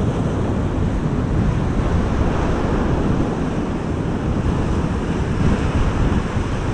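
Ocean surf breaking against a rocky shore, a steady rushing wash, with wind buffeting the microphone.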